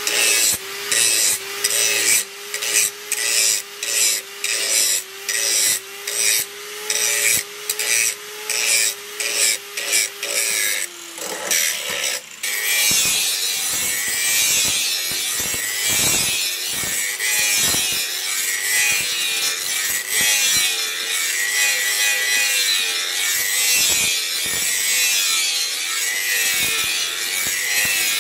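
Electric angle grinder running, its abrasive disc grinding a leaf-spring steel blade. For about the first eleven seconds the disc is pressed on in short repeated strokes, about one and a half a second, over the motor's steady whine. After that it grinds continuously.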